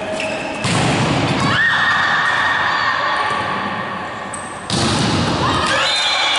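Loud echoing sports-hall noise during a volleyball rally: thuds, with a sudden loud outburst about a second in and another near the end, in which rising, held tones come through.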